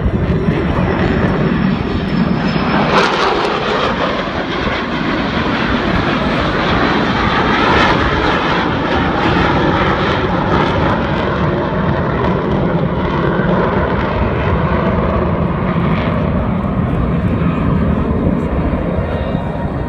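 F-16 fighter jets flying past: continuous loud jet engine noise, with a sweep in pitch about three seconds in as one jet passes close by.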